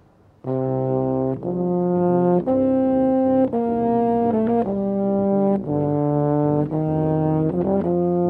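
Brass ensemble playing slow, sustained chords, starting about half a second in and moving to a new chord about once a second.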